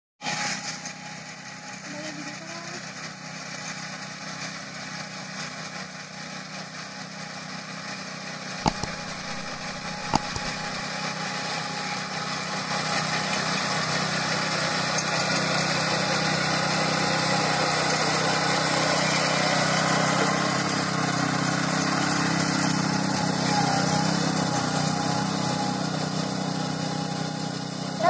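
Small engine of a walk-behind rice reaper running steadily as it cuts standing paddy, growing louder as the machine comes closer. Two sharp knocks sound about nine and ten seconds in.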